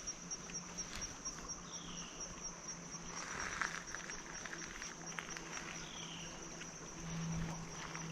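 Insects trilling steadily in a fast, even, high-pitched pulse, with a short falling note repeating about every two seconds.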